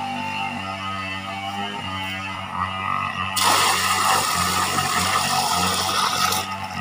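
Water pouring and splashing from a plastic jerrycan into a shallow tarp-lined pond, starting about halfway through and stopping shortly before the end, over steady background music.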